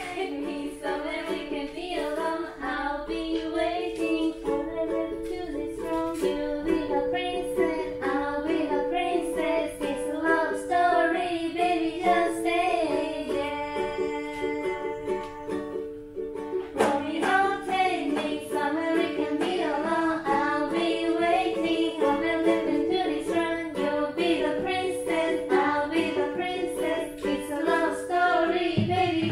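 Live acoustic song: women singing in English to a strummed ukulele and acoustic guitar, with a short break about sixteen seconds in.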